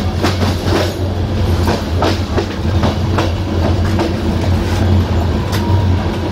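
Passenger train running along the track: the wheels clack over rail joints with irregular sharp clicks, over a steady low rumble.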